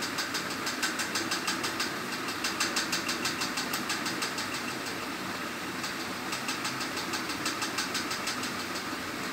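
Steady machine hum with rapid, even ticking, about five ticks a second, that fades out after a few seconds and comes back later.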